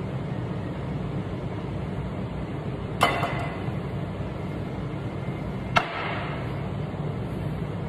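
Hard items knocked down on a counter: a sharp clack about three seconds in with a few small rattles after it, and a second sharp knock near six seconds, like a metal milk pitcher and a ceramic cup being set down. A steady low hum runs underneath.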